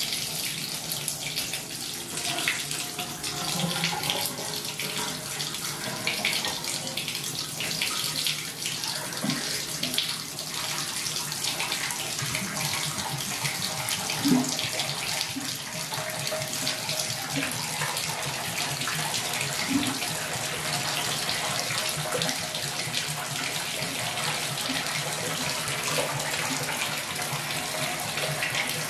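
Bathtub spout running a steady stream of cold water onto the tub floor and down the drain, splashing with an even hiss. The water is flushing sulfuric-acid drain cleaner through a slow, clogged tub drain.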